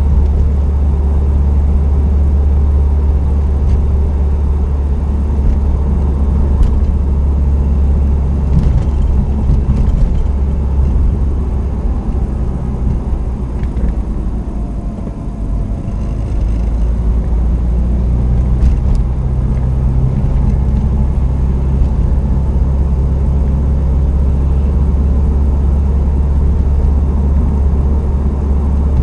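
Subaru WRX STI (VAB) on the move, a steady, loud low rumble of engine and road noise, easing slightly for a few seconds about halfway through.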